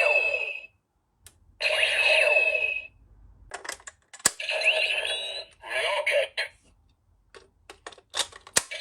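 DX Kamen Rider Nadeshiko Driver toy belt playing electronic sound effects through its small speaker. There are four short bursts of bright, beeping jingles and quick rising zaps, with sharp clicks between them as its switches are pressed.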